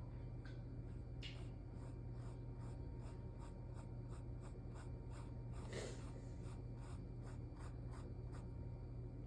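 Paintbrush dabbing and stroking paint onto a canvas through a stencil: faint, repeated soft taps, roughly two to three a second, with one louder brushing rustle about six seconds in. A steady low hum runs underneath.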